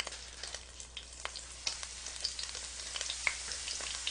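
Egg-battered pollock fillets sizzling in cooking oil in an electric pan: a steady frying hiss with scattered crackling pops.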